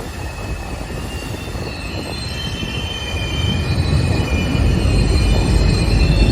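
Train hauled by ALCO diesel locomotives braking hard: high-pitched metallic screeching comes in about two seconds in, several squeal tones at once, over a low rumble that grows louder toward the end as the train draws closer.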